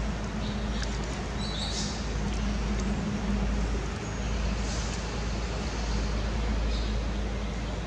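Steady low outdoor rumble with a faint hum, with a few brief high-pitched chirps or squeaks over it.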